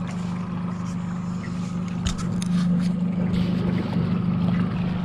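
Boat motor running steadily with a low, even hum. There is a knock about two seconds in and a few brief clicks after it.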